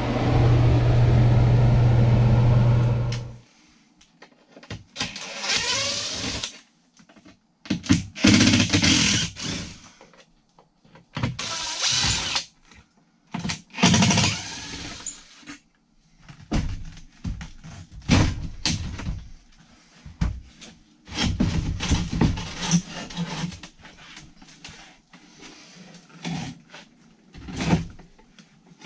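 Cordless drill/driver running in short bursts of about a second each, backing out the screws of a boat galley refrigerator's frame, with knocks and handling of panels between the bursts. A steady hum cuts off after about three seconds.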